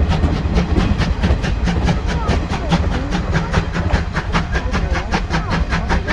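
Steam locomotive running, with a quick even beat about five times a second over a low rumble.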